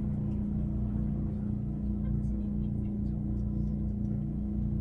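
Steady low hum and rumble of a Tokyu Setagaya Line tram car heard from on board, a single unchanging tone over a low rumble.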